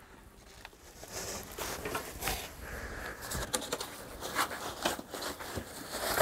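Cardboard packaging and foam padding scraping and rustling as they are handled, with scattered light knocks and clicks. It starts about a second in.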